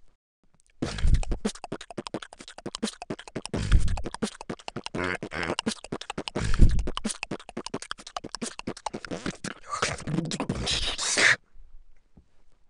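Beatboxing: a fast stream of mouth-made percussion, with sharp clicks, hisses and deep thumps, starting about a second in and stopping shortly before the end.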